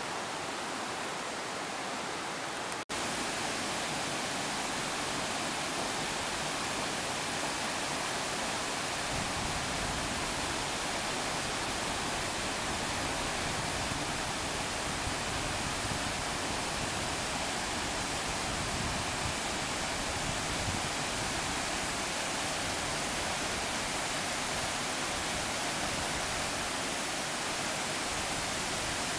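River rapids and a waterfall rushing: a steady, even roar of whitewater. It drops out for an instant about three seconds in, then resumes slightly louder and deeper.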